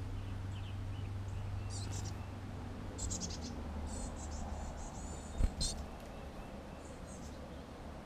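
Small songbirds calling in several short bursts of high-pitched chips and twittering, over a steady low hum. A sharp knock about five and a half seconds in.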